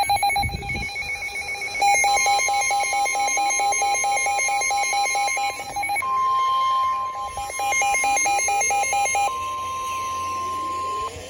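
Emergency Alert System alert tones: a fast-pulsing electronic beep over a steady higher tone. The pulsing pauses for about a second midway, then stops about two seconds before the end, leaving the steady tone alone.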